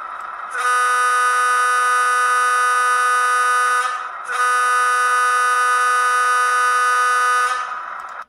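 Sound decoder in an N scale Kato FP7A playing a Wabco A200 air horn through a small sugar cube speaker: two long blasts of about three seconds each. Under them runs the decoder's EMD 16-567 prime mover sound.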